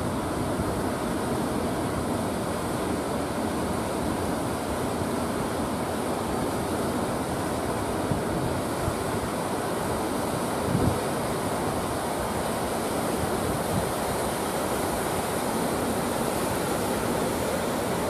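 Heavy ocean surf breaking on the beach and around rocks: a continuous rushing wash of waves, with a slightly louder crash a little past halfway.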